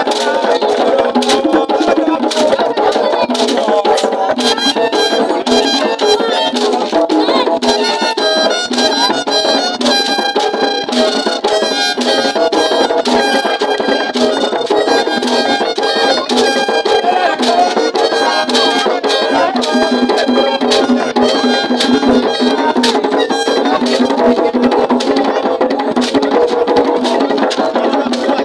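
Live flali mask-dance music: several djembe-type hand drums and net-covered gourd rattles keep a fast, dense rhythm, with a high piping melody of repeated notes joining about four seconds in.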